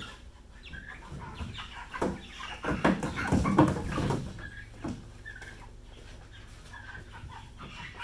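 Young meat chickens clucking and calling, with rustling and knocking as birds are set into a plastic tote crate, loudest about three to four seconds in.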